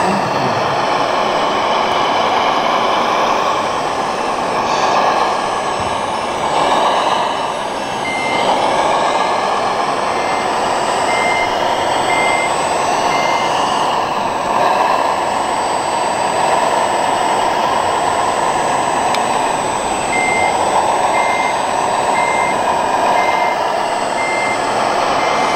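Reversing alarm on a scale RC construction vehicle, beeping about once a second in two runs: one starting about eight seconds in and one near the end. Under it runs a steady engine-like drone.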